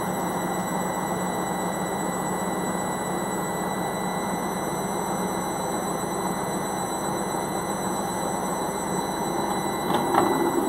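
Gorenje front-loading washing machine running its wash, the drum tumbling laundry through heavy suds with a steady motor hum. Near the end there is a click and the running sound gets a little louder.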